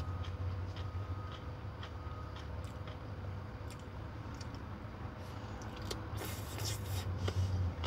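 Close-up eating sounds: chewing Korean-style shredded carrot salad, with small mouth clicks and a louder noisy stretch about six seconds in, over a steady low hum in the truck cab.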